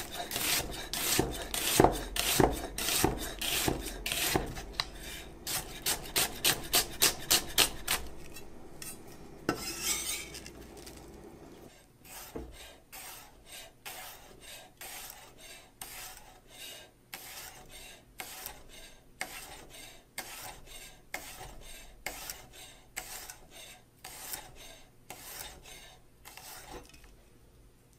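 A freshly sharpened 9-inch Wüsthof chef's knife slices through onion and then garlic cloves on a bamboo cutting board, each stroke ending in a crisp tap on the wood. The strokes are loud and come about three a second at first. After about twelve seconds they turn softer and more spaced out, and they stop shortly before the end.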